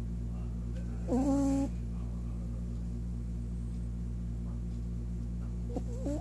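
A sleeping pet snoring loud, a steady low rumble. A short, louder pitched call comes about a second in, and another brief one near the end.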